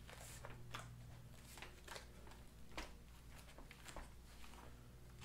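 Faint rubbing and light clicks of hands pressing and sliding a ribbed plastic bunk cover stretched over a trailer bunk board, over a low steady hum.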